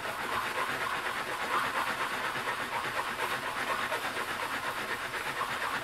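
The edge of a steel cabinet scraper, held square, is rubbed back and forth on 500-grit abrasive paper on a glass plate: a steady scratchy rasp that pulses with the strokes. The edge is being polished flat and sharp before the burr is turned.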